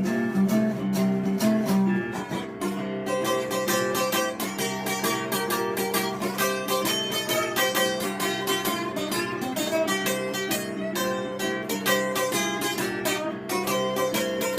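Instrumental break in a song: a plucked acoustic guitar playing, with no singing.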